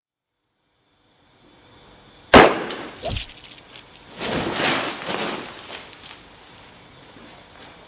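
A sudden loud bang with a ringing tail about two seconds in, a second, lower knock just after, then a rough rushing noise lasting about a second.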